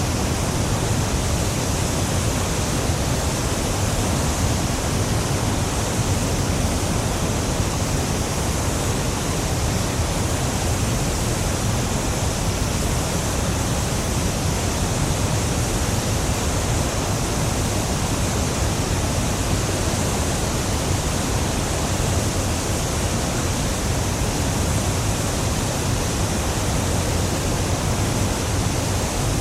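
Niagara Falls: a huge waterfall's steady, heavy rushing roar of falling water, an even wash of noise with a deep low rumble and no breaks.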